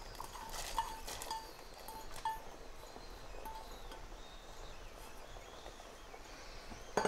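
Chopped onion scraped by hand out of a small stainless steel bowl into a pot of boiling lentils, with light scraping and short, faint metallic clinks from the bowl, and a louder clank right at the end.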